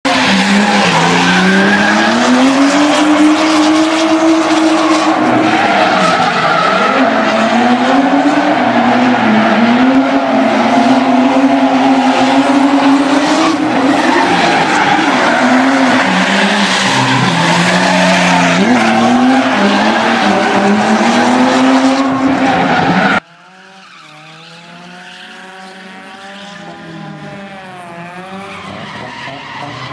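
A drift car's engine revving hard, pitch rising and falling with the throttle, over the skidding of its tyres as it slides. About three-quarters of the way through the sound drops off suddenly, leaving a quieter, more distant engine revving that grows gradually louder.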